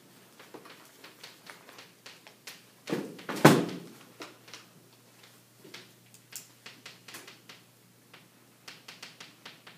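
Chalk writing on a chalkboard: a string of short taps and scratches, with a louder knock about three and a half seconds in.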